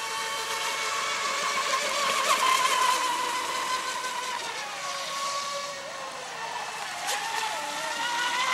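Pro Boat Zelos 36 twin-motor RC boat running at speed on 6S lipo: a high electric motor whine over the hiss of spray. The pitch sags in the middle as it eases off and climbs again near the end, with a single sharp click about seven seconds in.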